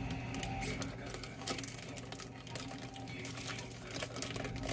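Steady low hum with scattered light clicks and faint background voices.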